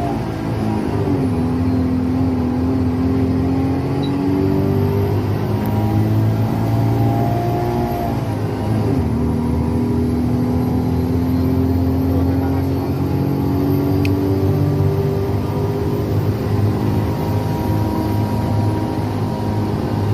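Intercity bus engine running under load, heard from on board, with a steady drone and a whine above it. Its pitch drops sharply twice, near the start and about eight and a half seconds in, as it shifts up, then holds or climbs slowly again.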